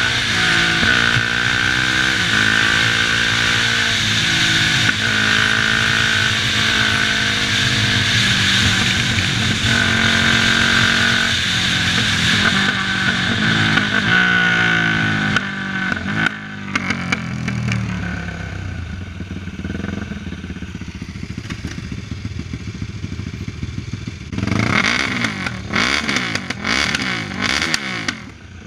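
Sport quad's single-cylinder engine pulling through the gears at speed, revs rising and falling again and again over a steady wind rush. About halfway through it eases off to a lower, quieter idle, then is revved in several quick blips near the end.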